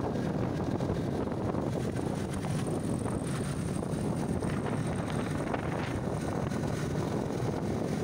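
Steady wind rush on the microphone over a motorcycle engine running at cruising speed.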